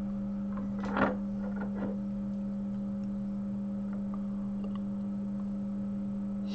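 Steady electrical hum from repair-bench equipment, with a louder click about a second in and a few faint clicks, typical of a computer mouse being used to open a program.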